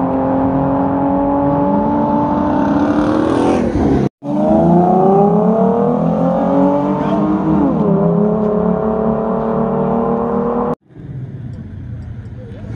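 Two cars accelerating hard in a street race, their engines revving up and climbing steadily in pitch, with a dip at a gear change about seven to eight seconds in. The sound cuts out abruptly about four seconds in and again near the end, after which it is much quieter.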